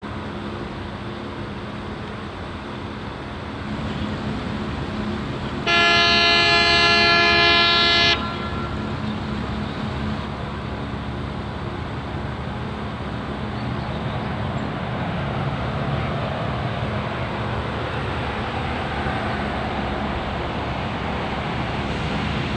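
Small Tohatsu outboard motor running steadily. About six seconds in, a loud horn sounds one long blast lasting a little over two seconds.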